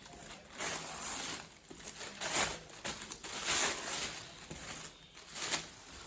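Plastic wrapper being pulled and crinkled off a cardboard product box, in a run of short rustling bursts.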